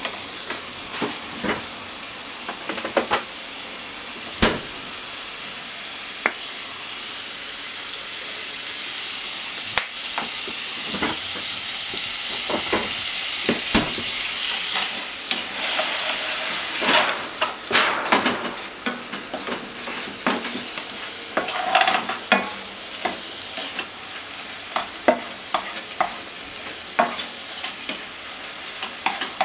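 Ground chicken sizzling in a nonstick frying pan while a plastic spatula stirs and scrapes it, with scattered knocks and scrapes of the spatula on the pan. Midway the sizzle grows louder and hissier as a soy-sauce seasoning cooks in the pan.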